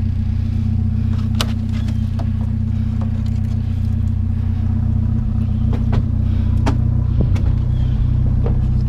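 A vehicle engine idling steadily with a low hum, with a few sharp knocks and clanks from handling.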